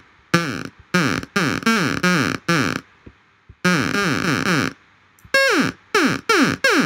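Software synthesizer oscillator played by MIDI through a decay envelope: about ten short notes, each falling quickly in pitch like an old video game zap. The pitch drops because the decay value drives the oscillator's frequency down after each key press. The last few notes start higher.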